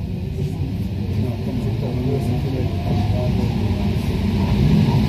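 Rubber-tyred Paris Métro Line 1 train running through a tunnel, heard from inside the car: a low rumble with wavering hums that grows steadily louder.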